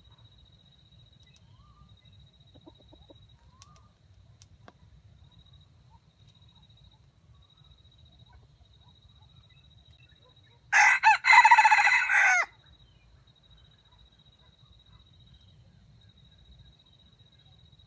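A red junglefowl rooster (wild chicken) crows once, a call of under two seconds that begins with a couple of short broken notes before the main drawn-out phrase.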